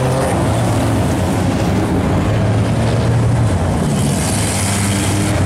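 Dirt-track stock car engines running at low speed as the cars roll past in line, a loud steady sound with a slightly shifting pitch.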